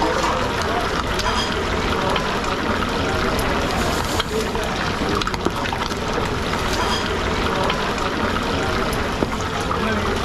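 Hot oil bubbling steadily and crackling with many small spits around a whole pig's head deep-frying in a steel pot.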